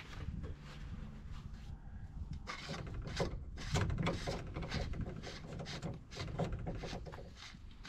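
Irregular clicks, knocks and rubbing from hands working among the parts in the engine compartment of a John Deere 8360R tractor, busiest from a little over two seconds in.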